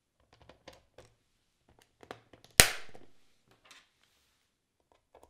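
Plastic service cover of a Testo 340 flue gas analyser being fitted back over the sensor compartment: faint scattered handling taps, then one sharp snap about two and a half seconds in as the cover clips shut.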